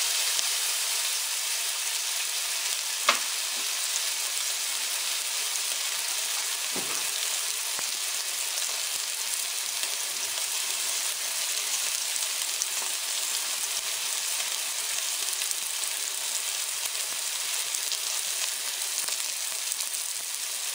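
Chuck roast searing in an enameled cast-iron Dutch oven: a steady sizzle throughout. There is a sharp click about three seconds in and a dull knock about seven seconds in.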